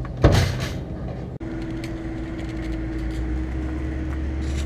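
A loud knock about a quarter second in, as a plastic oil jug is handled in a pickup truck bed, followed by a brief rattle; then a steady low vehicle engine hum.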